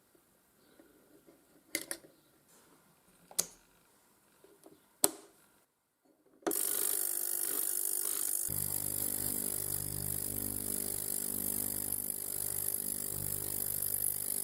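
Three sharp small clicks and light handling of watch tools and parts. About halfway through, a louder steady mechanical hum with a hiss starts up.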